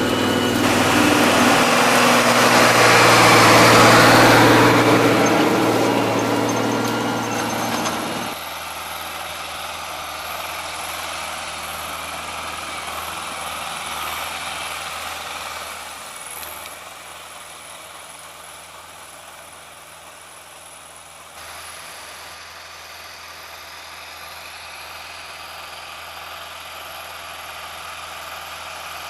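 Farm tractor engine running steadily, growing louder to about four seconds in and then fading. About eight seconds in the sound changes abruptly to a quieter, steady engine hum.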